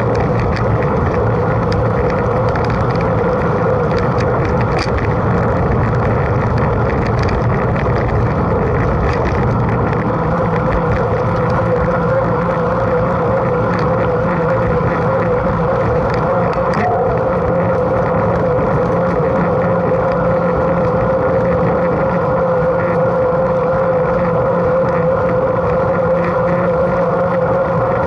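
Mountain bike riding along at speed: a steady rush of wind on the microphone and tyre noise, with a constant hum at one pitch and faint scattered ticks and rattles.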